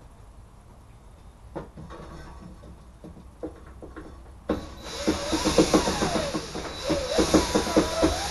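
A few light clicks, then about four and a half seconds in a cordless drill starts up, driving out a ceiling screw, its motor running with a rapid pulsing of about four or five beats a second.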